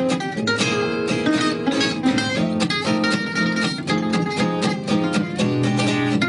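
Background music: acoustic guitar playing quick plucked notes and strums.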